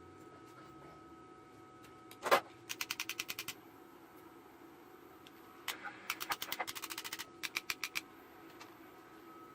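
One sharp click about two seconds in, then two runs of rapid, evenly spaced clicks, about ten a second, over a steady faint hum.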